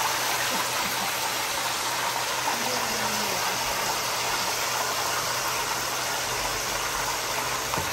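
Chicken pieces frying in a deep layer of hot oil: a steady sizzle, with a low steady hum underneath.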